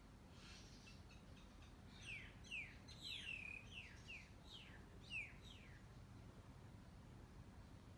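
A bird calling a quick series of short chirps that each fall in pitch, about two a second, from about two seconds in to nearly six, over a quiet background hum.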